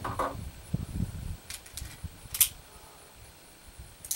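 A few sharp metallic clicks from handling a Star Model F .22 pistol and its case, after a low rumble of movement. The loudest click comes about two and a half seconds in, and two more come at the very end.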